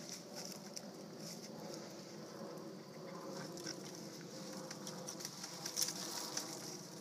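A dog rustling and scratching through dry fallen leaves, a continuous crackling with many sharp little crunches, loudest about six seconds in.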